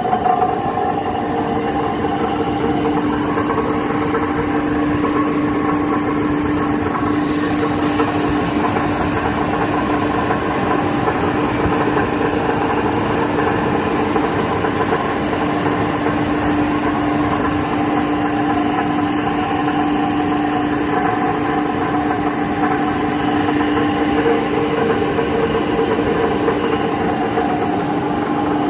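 Gear reducer (speed-reduction gearbox) running steadily, giving a continuous hum with a clear steady tone over a rough mechanical noise. This is the abnormal noise that the gearbox is making.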